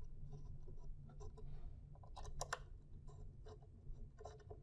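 Faint clicks and scrapes of an Allen wrench working a screw and hands handling the plastic reagent pump and its tubing, with a sharper couple of clicks about two and a half seconds in.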